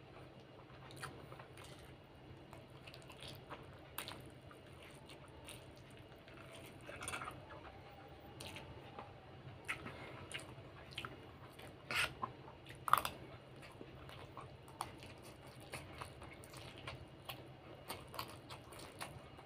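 A person eating fried instant noodles and rice with a metal spoon: chewing and mouth noises, with scattered sharp clicks of the spoon against the plate, two of them louder a little past the middle.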